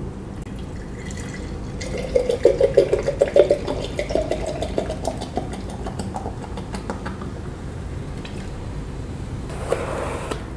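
Cola poured from a 1.5-litre plastic Pepsi bottle into a glass mason-jar mug: glugging that rises in pitch as the jar fills, then a crackling fizz as the carbonation foams up. A short rustle near the end as a cardboard pizza box is opened.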